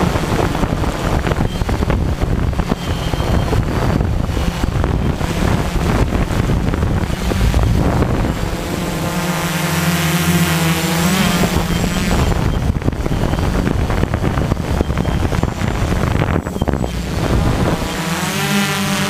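Tarot 690S hexacopter's six brushless motors and propellers humming steadily in flight, with wind noise rushing over the microphone; the hum wavers in pitch about halfway through and again near the end.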